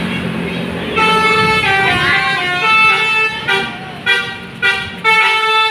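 Telolet bus horn, a set of musical air horns, playing a tune of held notes that step up and down in pitch. Near the end it breaks into short toots.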